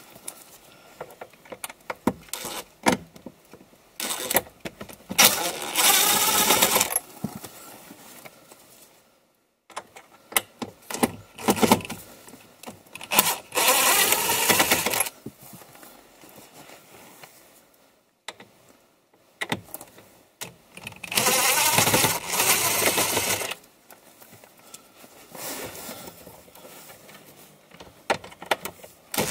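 Cordless DeWalt power driver running in three bursts of about two seconds each, backing out the screws that hold the factory head unit, with short clicks and rattles of screws and handling in between.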